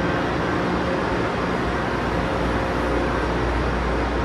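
Steady rushing hum of a high-speed electric train standing at the platform, its ventilation and onboard equipment running, with a deep low drone underneath.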